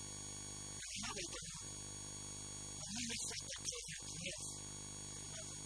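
A steady electrical hum made of many fixed tones runs under a man's voice, which speaks in short phrases about a second in and again from about three seconds.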